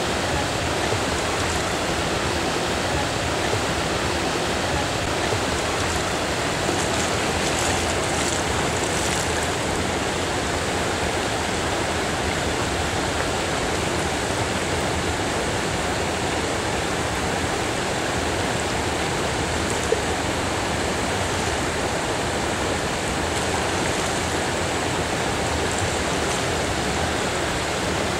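Steady rushing of flowing river water, with one short sharp click about two-thirds of the way through.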